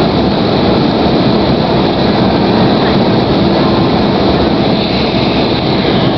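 Steady cabin noise inside an Embraer 190 airliner in flight: the rush of air over the fuselage and the hum of its CF34 turbofan engines, unbroken and loud.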